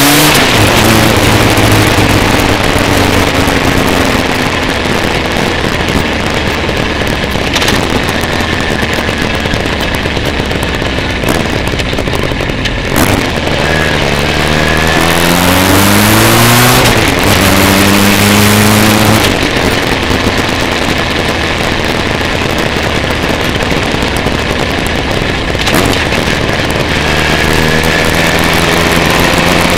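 Motorcycle engine heard from on board, pulling up in rising runs at the start, about halfway through and again near the end, with a steady rush of wind noise over the microphone while cruising between them.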